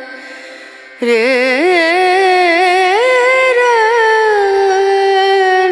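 Background song: a singer holds long, ornamented notes with a wide vibrato. The voice comes in loudly about a second in, after a quieter moment.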